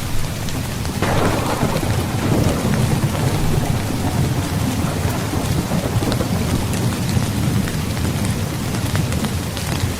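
Steady heavy rain with a low rumble of thunder underneath; about a second in, a sharper thunderclap breaks and dies away into rolling rumble over the next few seconds.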